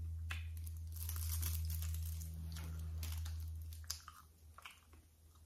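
Foil wrapping around a tortilla wrap crinkling as it is handled, with scattered rustles over the first four seconds, over a steady low hum that drops away about four seconds in.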